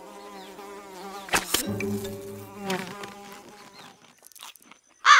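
A fly buzzing over background music, with a sudden sharp snap about one and a half seconds in.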